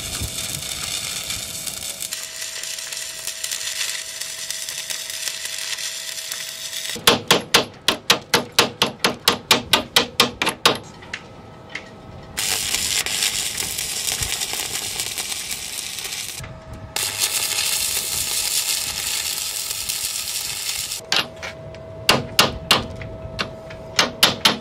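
Stick-welding arc crackling and hissing steadily as a steel chain plate is welded in, in several runs. Two bursts of a chipping hammer rapidly knock slag off the weld, about five sharp metal strikes a second: one about seven seconds in lasting some four seconds, and another near the end.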